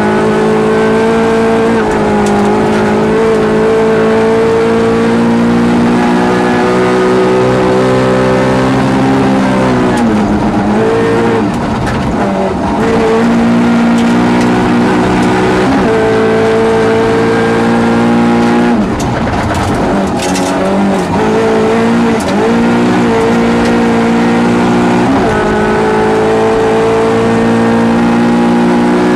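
Rally car engine heard from inside the cockpit, run hard in the high revs, its pitch dropping and climbing again several times at gear changes and lifts, most clearly around the middle and about two-thirds of the way through.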